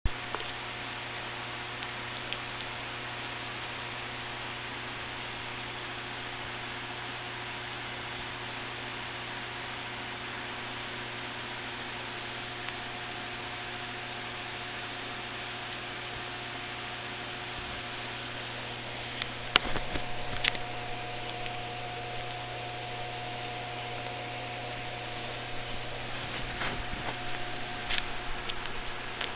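Steady electrical hum over a constant hiss, with a few short knocks about twenty seconds in and a run of small knocks near the end.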